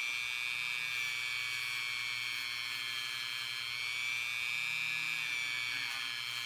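Dremel rotary tool running with a 400-grit sanding attachment, sanding a 14k gold ring band smooth: a steady high-pitched whine with a low hum beneath, the pitch wavering slightly.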